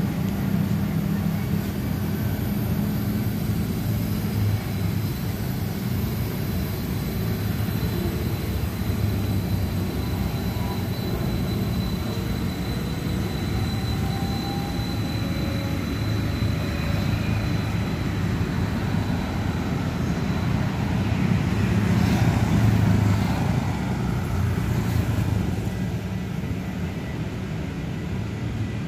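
INKA battery-electric tram prototype rolling past on its track, mixed with road traffic: a steady low hum and rumble with a faint high whine in the middle, swelling briefly about twenty-two seconds in.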